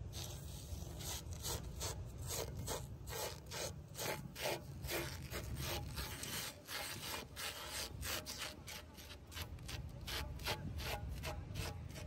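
A gloved hand rubbing and smearing thin bread batter across a round metal griddle, giving a quick run of short scraping swishes at about three strokes a second. A low steady rumble runs underneath.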